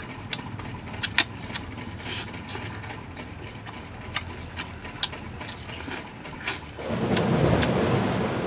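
Close-up eating sounds of a man chewing roast chicken with his fingers: a run of sharp wet clicks and lip smacks. Near the end comes a loud rushing noise lasting about a second and a half.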